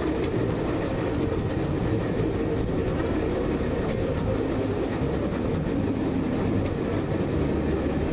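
Rail bike rolling along a steel track: its wheels make a steady low rumble, with faint scattered clicks.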